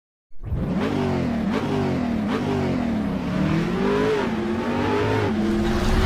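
Car engine revving, its pitch climbing and dropping several times in a row, starting abruptly just after the beginning.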